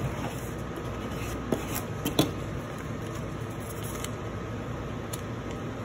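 Plastic scraper rubbing over masking tape on a vinyl decal sheet to burnish it, then the sheet's paper backing being handled and peeled, with a couple of sharp clicks about one and a half and two seconds in.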